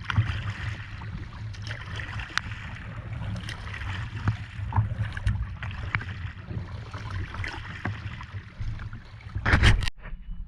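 Small boat moving on choppy water: a steady low rumble of wind and water against the hull, with scattered knocks and slaps. It cuts off suddenly near the end.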